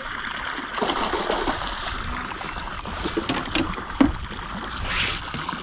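Water splashing and sloshing as a hooked bass fights at the surface right beside the boat, the taut line slicing through the water, with a few sharp clicks and a louder splash near the end.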